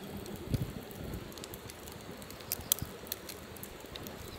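Wood fire crackling, with sharp pops scattered through over a low rumble, two of them louder, about half a second and two and a half seconds in.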